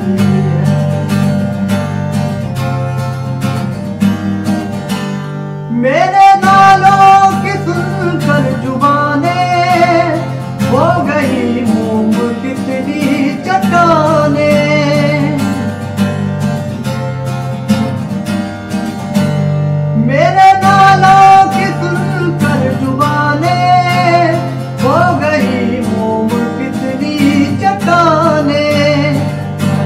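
Acoustic guitar strumming the accompaniment. About six seconds in, a man's voice joins, singing long, ornamented phrases that glide up and down. The singing breaks off briefly and comes back in around twenty seconds in.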